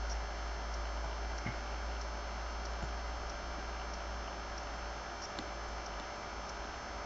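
Steady low hum and hiss with a few faint clicks of a computer mouse, the clearest about a second and a half and about three seconds in.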